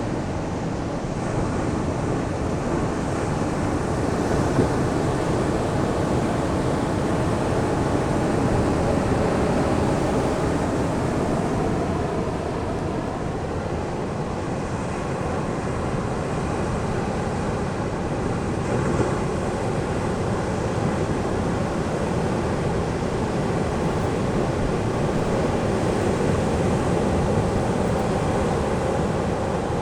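Ocean surf breaking on a sandy beach: a steady wash of waves whose loudness slowly swells and eases.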